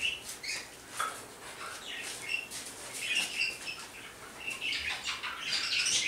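Birds chirping in short, irregular calls, busier near the end.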